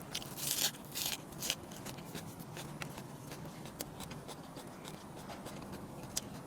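Chewing and crunching food close to the microphone: a few loud crunches in the first second and a half, then scattered small clicks of chewing.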